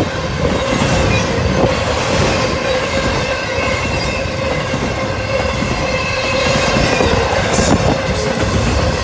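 Norfolk Southern double-stack intermodal freight cars rolling past at speed: a steady rumble of steel wheels on rail, with a continuous metallic whine over it.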